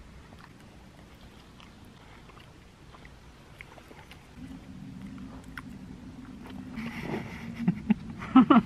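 Quiet biting and chewing of crusty baguette sandwiches, with scattered small crunches. About halfway in, a steady low hum starts and grows louder toward the end.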